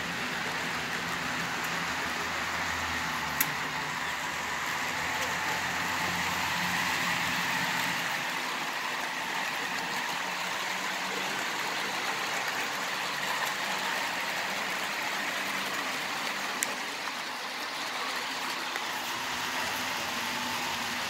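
HO-scale model trains, including Stewart Hobbies diesel locomotive models, running on the layout: a steady whir of small electric motors and metal wheels rolling on the rails, with two sharp clicks, one about three seconds in and one near the end.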